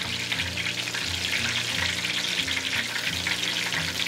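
Starch-coated tofu deep-frying in a pot of hot oil: a steady, dense sizzle and crackle of bubbling oil. It fries without much spitting, because the tofu was lightly blotted dry before going in.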